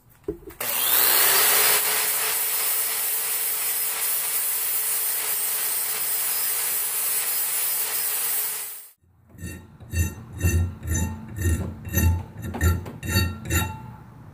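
Angle grinder spinning up and grinding the steel of a saw-blade knife blank clamped in a vise: a loud, steady grinding hiss over the motor's whine. It cuts off suddenly about nine seconds in. After that comes a hand file rasping along the steel blade, about two strokes a second.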